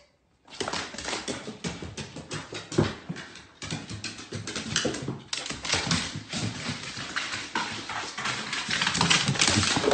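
A dog's paws and claws clattering on hardwood stairs as it bounds down them: a fast, uneven run of taps and thumps.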